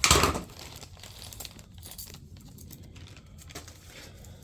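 Small plastic hardware bag being torn open and crinkled, loudest in a burst right at the start, then quieter rustling with small clicks.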